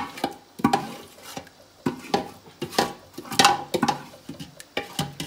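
A spoon scraping and knocking against a metal cooking pan in irregular strokes as chicken biryani masala is scraped out of it onto rice in a large aluminium pot.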